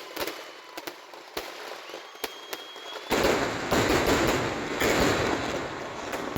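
Fireworks going off: a few separate sharp bangs, then from about three seconds in a dense, continuous barrage of crackling explosions.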